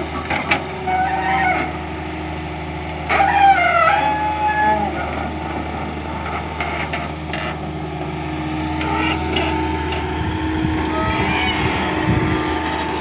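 Tata Hitachi Zaxis 210 hydraulic excavator's diesel engine running steadily under working load as the bucket digs soil, with a louder stretch of higher, shifting tones from the hydraulics about three seconds in.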